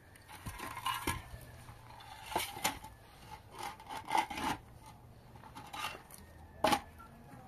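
Hollow concrete blocks being set down and stacked on one another: a series of knocks and gritty scrapes of block on block. The loudest knock comes near the end.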